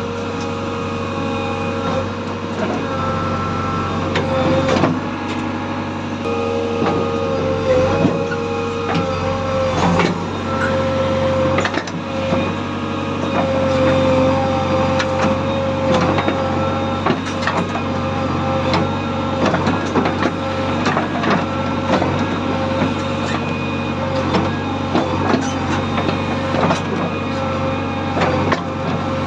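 JCB 3DX backhoe loader's diesel engine running steadily, with a steady whine over it and frequent knocks and clanks throughout.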